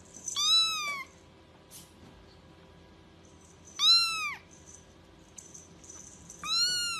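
Young kitten meowing three times, thin high-pitched cries about three seconds apart, each rising then falling in pitch.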